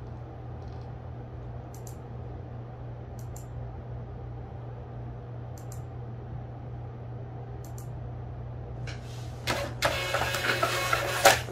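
A few faint computer-mouse clicks. Then, about nine and a half seconds in, a Rollo thermal label printer feeds and prints a shipping label for about two seconds, ending in a sharp clack. A steady low hum runs underneath.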